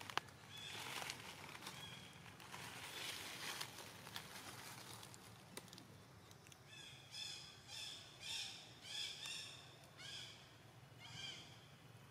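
A run of short, high-pitched animal calls, each a brief rising-then-falling squeal, repeated about two a second through the second half. A few fainter ones come near the start.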